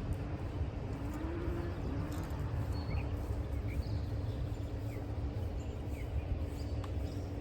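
Outdoor ambience: a steady low rumble with a few short, high bird chirps.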